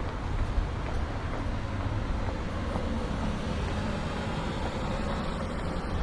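Outdoor town street ambience: a steady low rumble with an even hiss above it and no distinct events.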